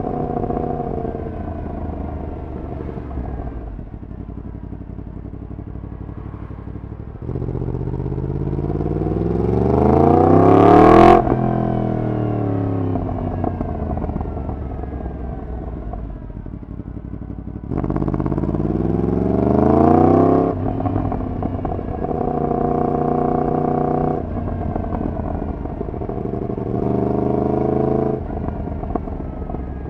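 Yamaha MT-10's crossplane inline-four running through a decat full exhaust system. It pulls hard twice, the pitch climbing steeply through the revs and cutting off sharply each time, winds down between the pulls, and holds short steady throttle stretches near the end.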